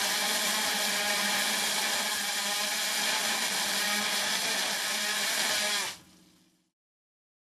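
High-pressure water jet lance cutting into a concrete slab: a loud, steady hiss with a steady low hum beneath it. It cuts off suddenly about six seconds in.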